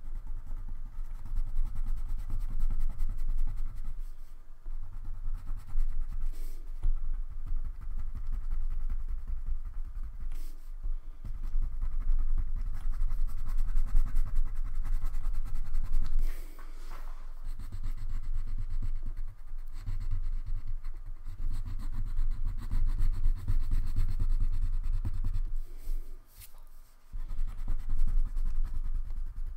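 Wax crayon rubbing back and forth on paper in quick strokes as an area of a drawing is coloured in, with two brief pauses, about halfway through and near the end.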